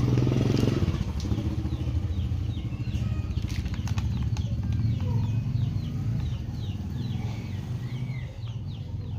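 An engine runs steadily with a low hum, loudest in the first second. Over it, from about three seconds in, birds chirp in many quick, short, high calls.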